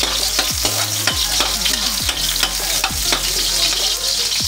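Garlic and onion sizzling in hot oil in a metal wok, stirred with a metal ladle that scrapes and knocks against the pan.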